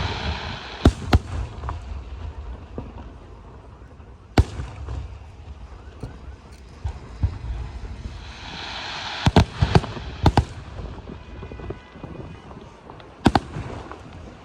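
Aerial fireworks shells bursting: sharp bangs about a second in, again near four seconds, a quick cluster of three around nine to ten seconds and one more near the end, over a rushing crackle that swells before the cluster.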